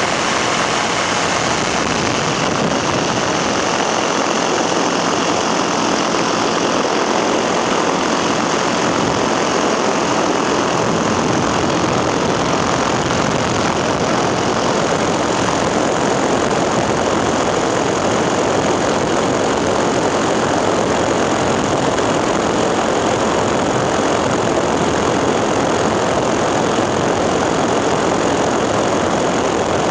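Powered paraglider's engine and propeller running steadily in flight, a continuous loud drone heard from the pilot's seat.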